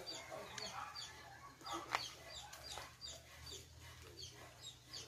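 Chickens clucking and peeping faintly, with short, high, falling peeps repeating two or three times a second. A single sharp click comes about two seconds in.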